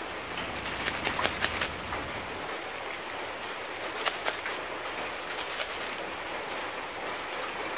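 Small plastic seasoning sachet crackling as it is handled and torn open, in a few short bursts of crinkles, over a steady hiss.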